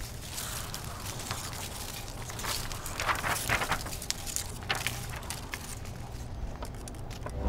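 Dry leaves rustling and skittering across pavement in the wind, with papery crackles, loudest around the middle.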